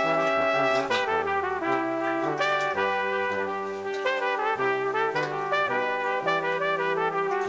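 Background music: several instruments holding pitched notes together, the melody and a lower bass line moving from note to note about every half second to a second.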